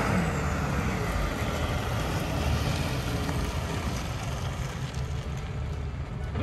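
Ram 3500 Heavy Duty pickup with its 6.7-litre Cummins turbo-diesel on the move: a steady low engine drone under road and wind noise.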